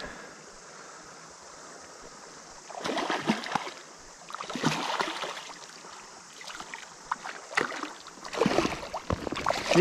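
Shallow river running steadily, then several splashes in the shallows as a hooked rainbow trout thrashes while it is brought to the net, busiest near the end.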